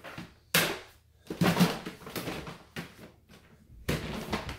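Clear plastic storage totes and their lids being handled: a sharp hollow plastic knock about half a second in, then scraping and rubbing, and another knock near the end.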